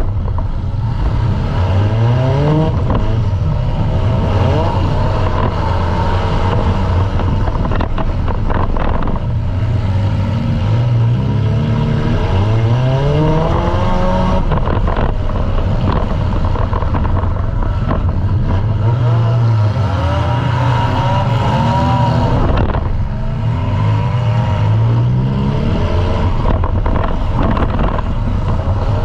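Compact demolition derby car's engine running hard, its revs climbing several times as the driver accelerates, over a loud continuous rattle of engine and chassis.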